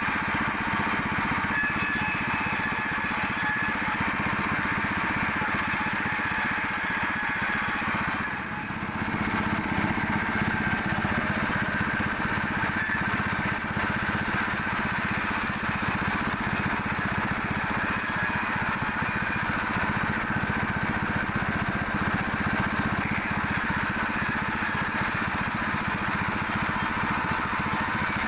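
Sawmill machinery running steadily, a continuous mechanical drone with a high whine over it, dipping briefly about eight seconds in.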